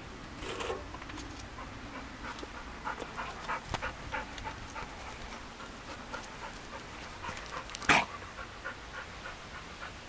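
A dog panting quickly and steadily close by, with one sharp knock about eight seconds in.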